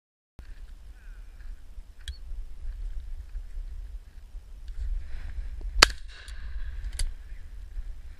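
Two shotgun shots from a Miroku MK70 over-and-under, about a second apart, the first the louder, over a low rumble on the microphone.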